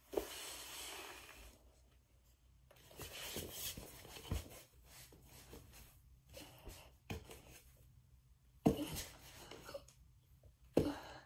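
Soft rustling and thumps as a child kicks up into handstands: hands and feet landing, with a few sharper knocks, the loudest about nine seconds in and again near the end.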